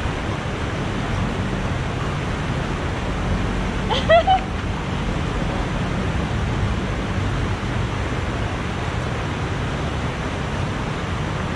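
Steady rushing of a shallow river flowing over rocks, with a low rumble underneath. About four seconds in come two short, quick pitched calls.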